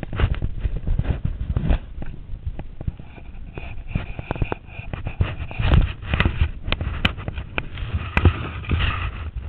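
Close-up rustling, rubbing and knocking on the camera, with irregular sharp clicks over a low rumble: handling noise from fabric brushing against the camera's microphone.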